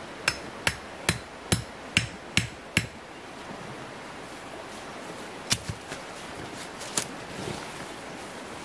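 A machete striking a wooden stake to peg down the corner of a tarp shelter: seven quick, sharp knocks at a steady pace, then two single knocks a few seconds later.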